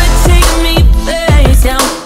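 Background music: an electronic pop track with deep bass notes that slide down in pitch. It starts to fade out just before the end.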